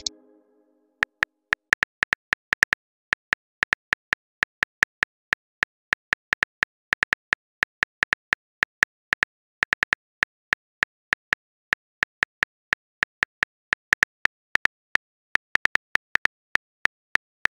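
Phone keyboard tap sound effects, short sharp clicks coming several a second in uneven runs as a text message is typed out.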